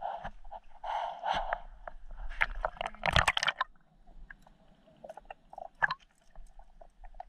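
Water splashing and sloshing for the first few seconds as the camera breaks the surface of a pool, loudest a little past three seconds in. Then a quieter, muffled stretch heard from under the water, with scattered sharp clicks.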